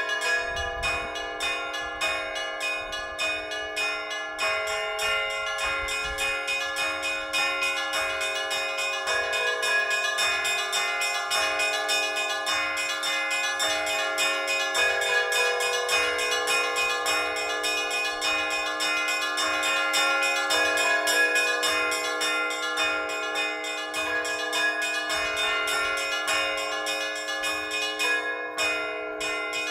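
Orthodox church bells rung by hand in a continuous peal: small bells struck in quick succession over the held, ringing tones of larger bells.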